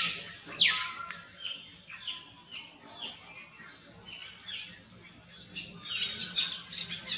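Baby macaque giving a run of short, high-pitched squeaks and squeals, each sliding sharply down in pitch. The loudest comes about half a second in, and a quicker cluster follows near the end.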